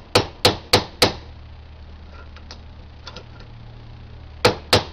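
Hammer strikes on a rivet-setting tool held in a bench vise, clinching a brass rivet through a new aircraft brake pad: four quick sharp blows, a pause with a few light taps, then two more blows near the end.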